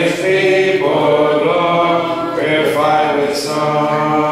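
A hymn sung a cappella in slow, long held notes that change pitch a few times.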